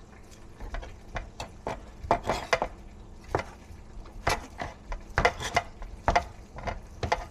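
A cooking utensil stirring and tossing fried rice in a pan, with irregular clacks and scrapes against the pan.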